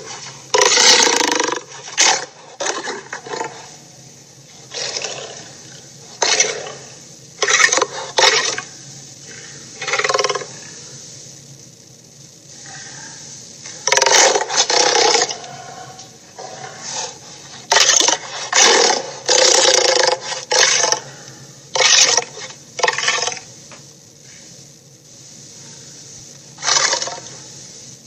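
Cartoon monster roar sound effects: a string of harsh roars and growls, each lasting from half a second to about two seconds, with short quieter gaps between them.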